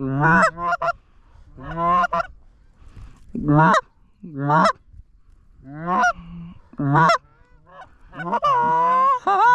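Loud goose honks, short and spaced about a second apart, then running together into a quicker, near-continuous string of honking near the end.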